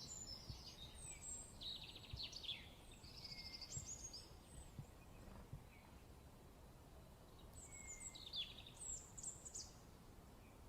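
A songbird singing in quick twittering phrases of sliding high notes and trills: one run in the first few seconds and another about eight seconds in, with a pause between, over a faint low background hiss.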